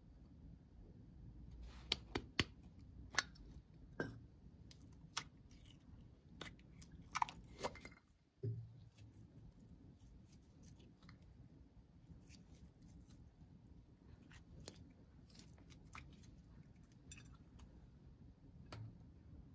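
Slime being squeezed and stretched by hand, giving off irregular sharp clicks and crackles, with a brief break about eight seconds in.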